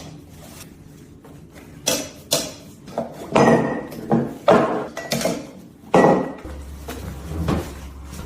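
Kitchen dishes or pans clattering: a string of about seven separate knocks and clinks, some of them ringing briefly.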